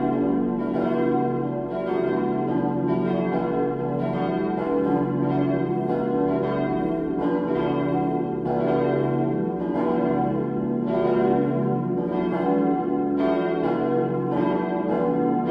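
Full peal of four 1922 cast-steel church bells, tuned B, D, E and F-sharp, swinging and striking in a continuous, overlapping, irregular pattern. The deep B bell stands out, and the D bell's clapper has long struck mostly on one side, which the uploader blames on unfavourable tuning and voicing.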